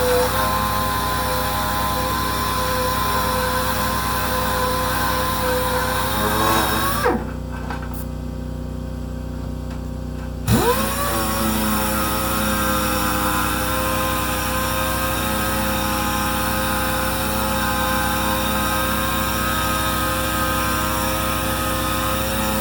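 Power sander running steadily on a truck dash part. About seven seconds in it is switched off and its pitch drops as it spins down. About three and a half seconds later it starts again, rising back up to speed, while a low steady hum carries on through the pause.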